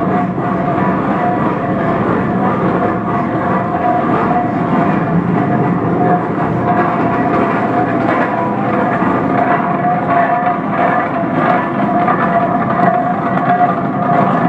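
1917 Minneapolis 40-80 tractor running after its rebuild: a steady mechanical clatter from the engine and its turning flywheel and gearing, with a steady whine held over it.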